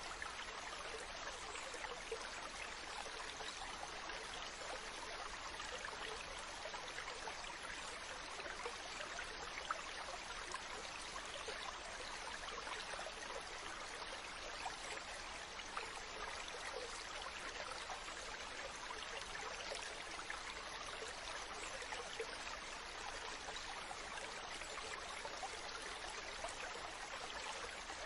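Mountain stream running over rocks: a steady rush of water, with small splashes and gurgles flickering through it.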